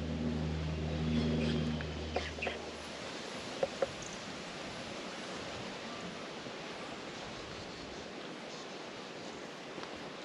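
Outdoor bush ambience with an even hiss. A low steady hum stops about three seconds in, and two sharp clicks follow close together a second later.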